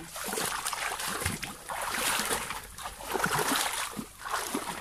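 Shallow water sloshing and splashing in several uneven swells.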